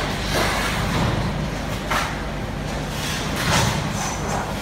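A steady low hum with several short knocks or scraping sounds, about one every second and a half.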